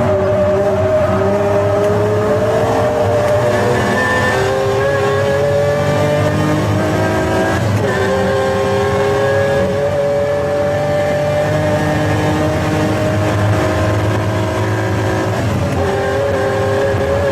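Pagani Zonda F Clubsport's V12 engine accelerating hard, its pitch climbing steadily through each gear, with upshifts about eight and fifteen seconds in.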